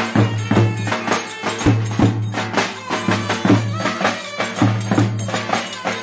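Traditional folk music: a reedy, bagpipe-like melody over a steady low tone, with a regular percussive beat about twice a second.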